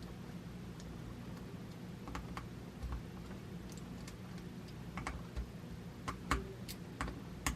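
Irregular small metal clicks and taps as Allen screws are threaded into a tripod adapter plate by hand with a hex key, over a steady low hum.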